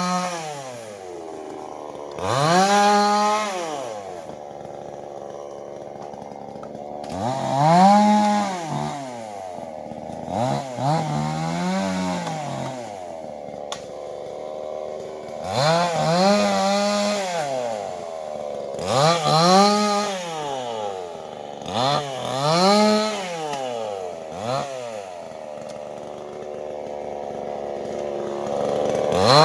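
Two-stroke chainsaw revved up and let back to idle again and again, about eight times, each rev rising in pitch and falling away, with the engine running steadily between.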